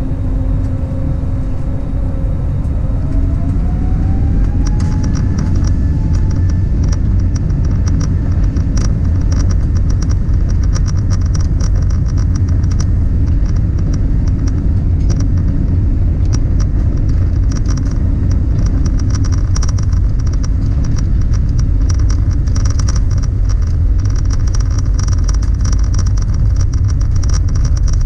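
Cabin sound of an Airbus A320neo's CFM LEAP-1A engines spooling up to takeoff thrust: a whine rises in pitch over a deep rumble for the first few seconds. Then the steady loud rumble of the takeoff roll, with rattling and short knocks from the wheels running over the runway.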